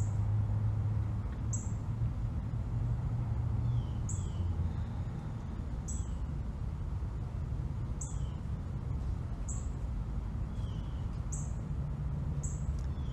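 Birds calling: short high chirps repeat every second or two, with a few fainter downward-sliding notes, over a steady low rumble.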